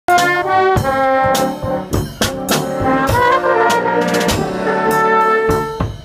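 Street brass band playing loudly: trumpets and saxophone sounding held chords and short phrases, punctuated by bass drum and cymbal hits.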